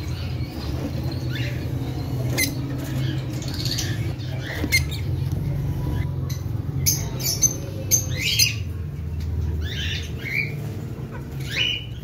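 Lovebirds giving short, shrill chirps and squawks, scattered at first and coming more often in the second half, over a steady low hum.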